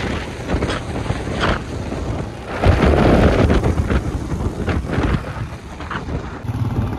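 Wind buffeting the microphone on a moving motorcycle, over the motorcycle's running engine and road noise. The rumble swells strongest about three seconds in.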